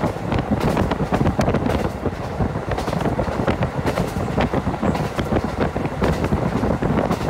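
Moving train running: a steady rumbling, rushing noise with irregular clicks and knocks, and wind on the microphone.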